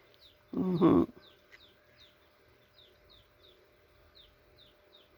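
A short voiced sound about half a second in, from a dog or a person. Through the rest, a small bird chirps faintly and steadily, a few short falling chirps a second.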